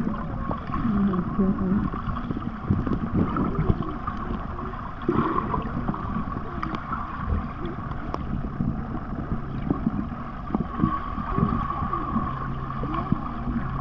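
Underwater sound picked up by a submerged camera: muffled, churning water noise with gurgling. A low steady hum comes in about eight seconds in.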